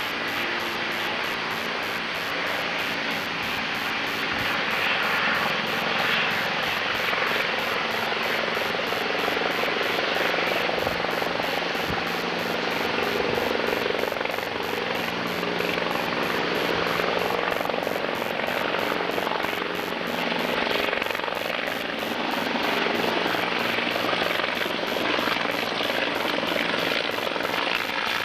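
Helicopter flying in toward the listener, its rotor and engine giving a steady, continuous noise with a low hum underneath.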